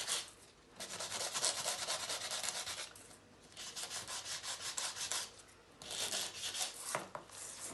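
Hand sanding block rubbed in quick back-and-forth strokes over a photo print to distress it: four spells of rapid scratchy rubbing with short pauses between them, and a small click near the end.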